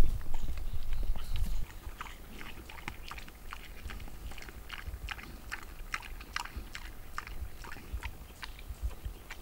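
Indian wild boar chewing on a piglet's carcass: irregular wet crunches and cracks of bone in its jaws, several a second. A loud low rumble fills the first second and a half.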